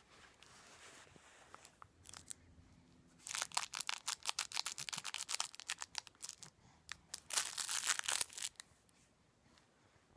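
Rapid, dense crackling made of many sharp clicks, in two spells from about three seconds in to about eight and a half seconds, with a short lull between them.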